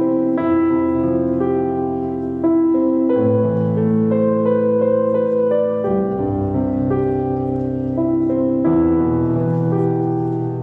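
Slow piano music, with sustained chords that change every second or two.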